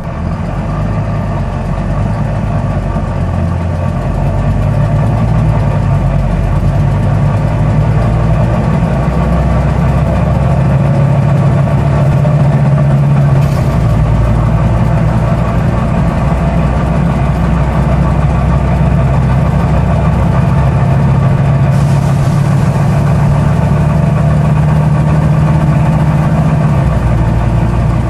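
Volvo B9TL double-decker bus's straight-six diesel engine running under way, growing louder over the first few seconds, its low note stepping up and down in pitch several times as it works through the gears.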